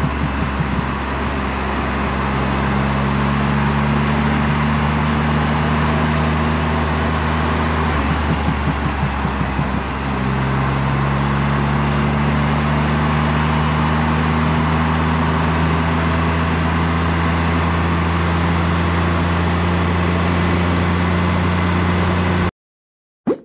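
Triumph Rocket 3 R's 2.5-litre inline-three engine running at highway speed, with steady wind and road noise over it. The engine note changes about ten seconds in. Near the end the sound cuts off abruptly, followed by a single short click.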